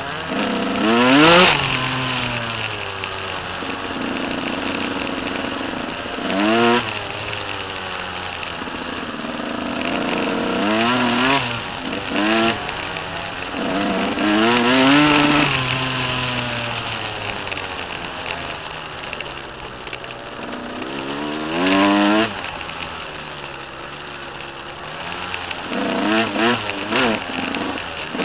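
Dirt bike engine riding along a trail, revving up sharply several times and easing back between, the pitch climbing and dropping with the throttle.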